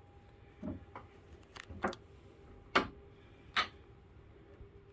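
A handful of irregular sharp knocks and clicks, about five in four seconds, over a faint steady hum: someone moving about a yacht's wooden cabin, footsteps on the wooden sole and knocks against the joinery.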